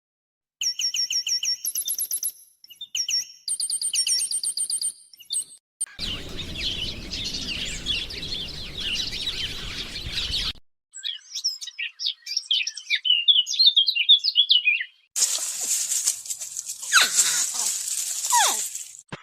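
A run of short animal-call clips dominated by bird chirps: rapid repeated high chirps and trills for the first five seconds, then a stretch of even rushing noise, then quick twittering chirps, and near the end a dense high hiss with chirps over it.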